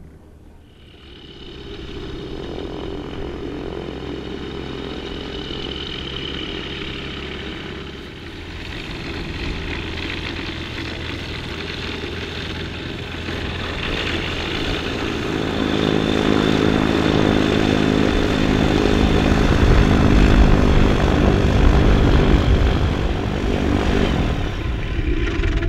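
Light airplane's propeller engine running steadily, growing louder through the second half as the low engine tones strengthen.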